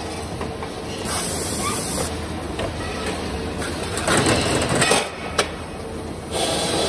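Fritz Gross GS425 automatic circular sawing machine working through its cycle: a steady machine hum with bursts of hiss, a louder rattling stretch, and a single sharp clack a little after five seconds.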